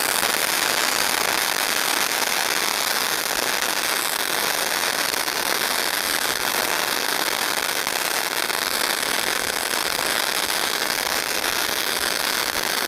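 Crackling ground fountain firework spraying sparks: a dense, steady hiss packed with many tiny rapid crackles and pops.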